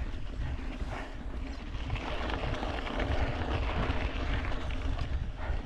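Mountain bike ridden over a rough grassy dirt trail: tyres rolling and the bike rattling over bumps, with wind rumbling on the microphone.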